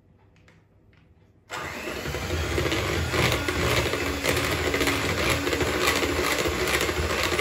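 Electric hand mixer switched on about a second and a half in and running steadily, its beaters mixing cake batter of creamed butter, sugar, egg and vanilla in the bowl.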